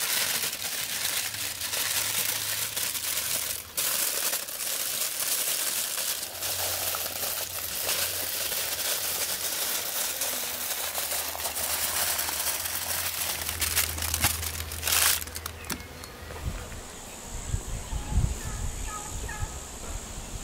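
Aluminium foil crinkling and rustling as it is folded by hand around skewered lamb ribs, a dense crackle that stops about sixteen seconds in. After that a steady high drone and a few low thumps are heard.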